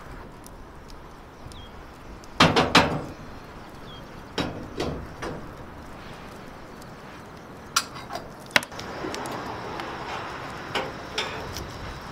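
Irregular knocks and clatters of cookware and utensils being handled. The loudest is a quick group of three knocks about two and a half seconds in, followed by scattered lighter ones.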